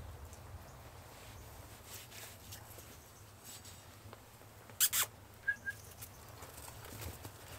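Two sharp knocks of a meat cleaver chopping lamb on a wooden cutting board about five seconds in, followed by two lighter taps, over a faint low background.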